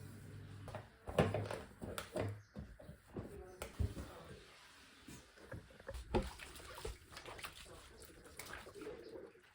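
Irregular clicks and knocks, a few sharp ones about a second, two seconds and six seconds in, over faint background noise.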